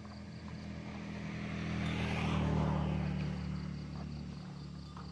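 A motor vehicle's engine passing by, its steady drone growing louder to a peak about two and a half seconds in, then fading away.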